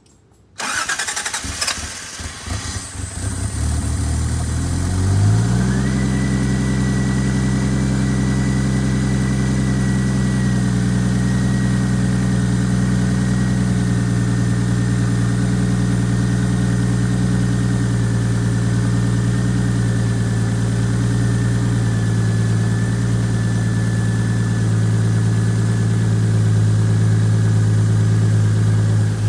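Turbocharged Toyota GTE straight-six in an A70 Supra starting up: it cranks and catches about half a second in, revs rise unevenly for a few seconds, then it settles into a steady idle with a faint high whine over it.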